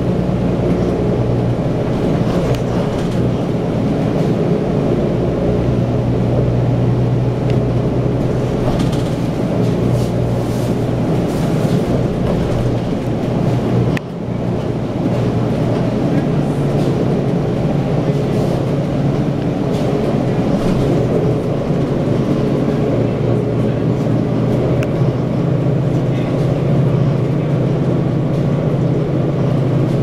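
Cummins ISL inline-six diesel of an Orion VII Next Generation transit bus running under way, heard inside the passenger cabin as a steady drone with road noise, its engine note shifting up and down a few times. The sound drops briefly about halfway through.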